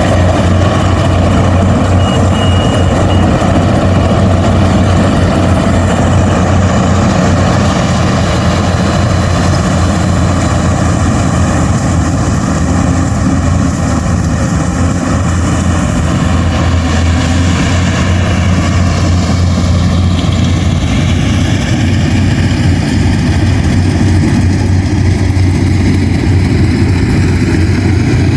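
Rice combine harvester running steadily while harvesting, its engine holding a constant loud drone.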